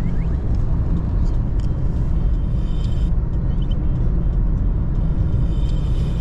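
Steady road and engine rumble of a moving car, heard inside the cabin.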